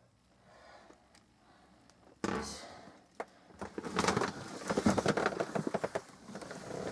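Handheld camera being picked up and moved: a sudden rustle about two seconds in, a click, then a run of rapid rustling, knocking and handling noise.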